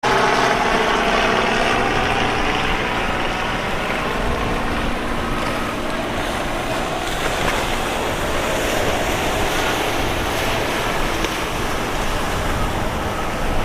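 Motorboat underway: a steady rush of water and wind noise on the microphone, with an engine hum that shows most clearly in the first few seconds.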